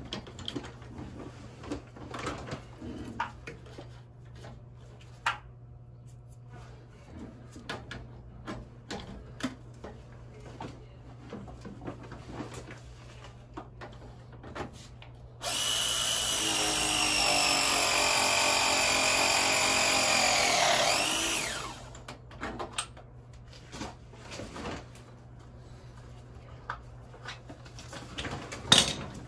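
A power tool's motor runs at speed for about six seconds, its pitch sagging a little, then winds down quickly as it stops. Light knocks and clicks of metal handling come before and after it.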